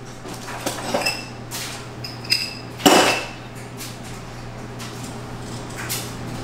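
Metal kitchen utensils and cookware clinking and clanking as they are handled, several sharp clinks ringing briefly; the loudest clank comes about three seconds in.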